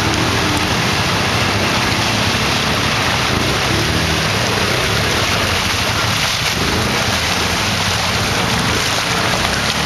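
A steady rushing noise covers the faint engine of an ATV revving unevenly as it ploughs through deep mud and water.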